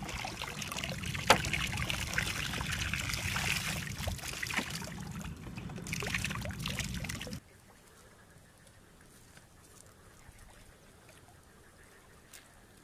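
Water splashing and trickling as plastic bottle traps are lifted from a muddy ditch and drained, with scattered clicks and a sharp knock about a second in. It cuts off abruptly at about seven seconds, leaving only a faint hiss.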